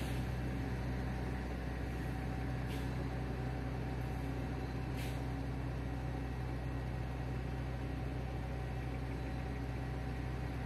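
Steady outdoor background noise, a low rumble with hiss, with three faint clicks in the first half.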